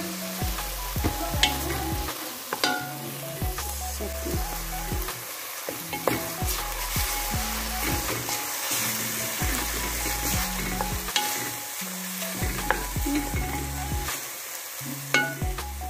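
Chopped onion and tomato frying in olive oil in a pot, sizzling steadily while a wooden spoon stirs and scrapes through them, with a few sharp clicks of the spoon against the pot.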